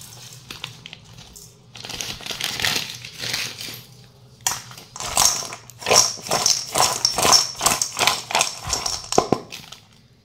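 Newspaper rustling as sugar is shaken from it onto cut fruit in a steel bowl. About four and a half seconds in comes a quick run of clicks and clatter as the fruit is mixed in the bowl, lasting about five seconds.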